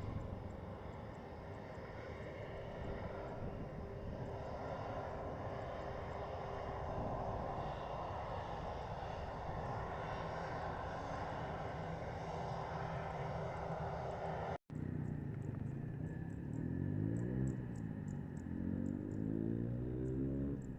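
Jet airliner engine noise, a steady roar that breaks off for an instant about two-thirds through. Afterwards it takes on a sweeping, rising-and-falling tone as the aircraft passes.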